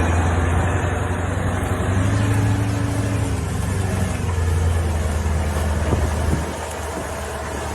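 Heavy engine running steadily with a low hum, a little quieter from about six and a half seconds in.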